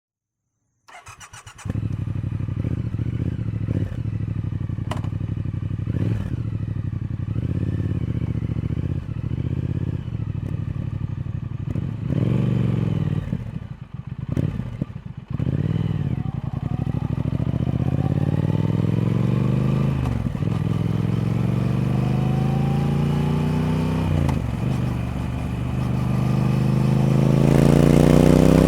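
Triumph Speed Twin's parallel-twin engine starting about a second in and idling steadily. Around halfway it is revved in a few quick throttle blips, then the bike pulls away, the engine note climbing through the gears with short drops at each gear change.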